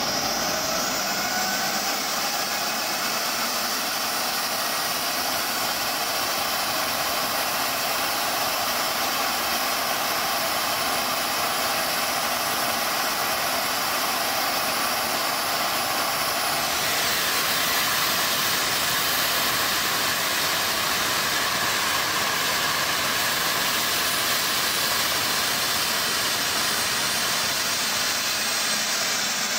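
Small gas-turbine jet engine, the gas-producer core of a turboshaft kart, running steadily at about 62,700 rpm: a loud rushing roar with high whining tones. About halfway through the high tones shift and one whine glides upward, then slowly sinks near the end.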